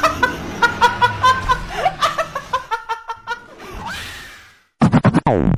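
A young woman laughing hard in quick high-pitched bursts that trail off about three seconds in. Near the end a loud falling sweep cuts in suddenly.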